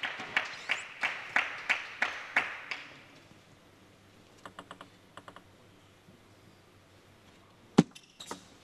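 Table tennis ball bounced in a steady rhythm, about three sharp taps a second, stopping about three seconds in; a few faint quick ticks follow, then one loud sharp crack near the end as the serve is struck.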